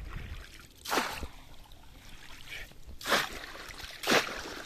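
A bamboo basket fish trap (polo) plunged into shallow river water, splashing three times: about a second in, then twice more a second apart near the end, the last the loudest, with water trickling in between.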